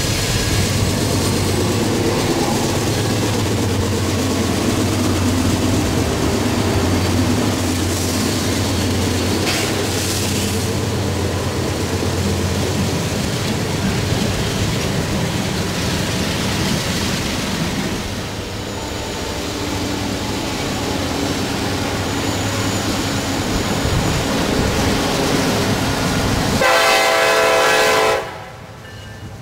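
Norfolk Southern diesel-electric freight locomotive passing close by, its engine a steady low drone over rolling wheel and rail noise. Near the end a BNSF locomotive's horn sounds one blast of about a second and a half.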